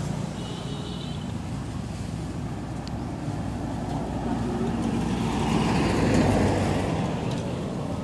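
Road traffic: a steady low rumble of passing vehicles, with one vehicle going by that swells and fades, loudest about six seconds in.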